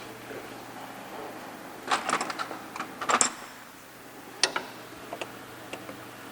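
Hand work on engine intake parts: two quick flurries of clicking and clattering, then a single sharp click and a few light ticks, over a steady low hum.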